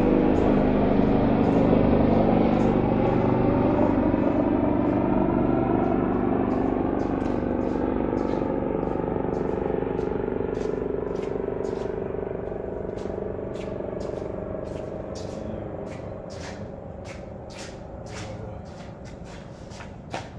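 A motor vehicle's engine rumbling steadily and fading away over about twenty seconds, as if driving off. Short sharp clicks come more and more often in the second half, with one louder tick near the end.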